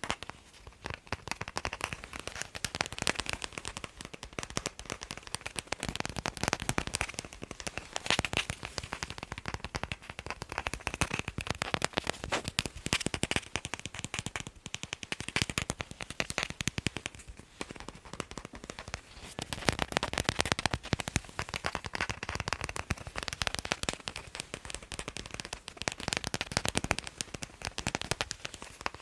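Fast, dense finger tapping on a ball, a rapid patter of sharp taps with a couple of brief lulls.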